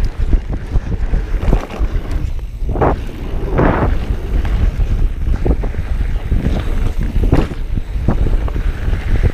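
Mountain bike ridden fast over a rough dirt trail: wind buffeting the microphone in a steady low rumble, with frequent knocks and rattles from the bike over bumps. Louder rushes of noise swell up around three and four seconds in.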